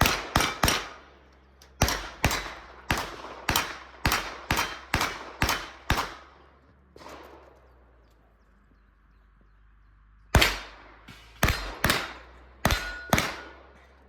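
Rapid strings of gunshots in a practical shooting stage: a few shots right at the start, a string of about a dozen shots, a pause of about four seconds, then about six more shots. A short ringing tone follows some of the shots.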